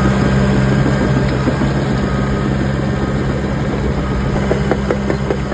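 Cat 316 hydraulic excavator's diesel engine running at a steady pitch, with scattered clicks and knocks in the second half.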